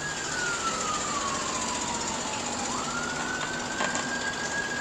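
Emergency vehicle siren wailing: a single tone that slides slowly down for nearly three seconds, jumps back up and climbs again, then starts to fall near the end, over steady street noise.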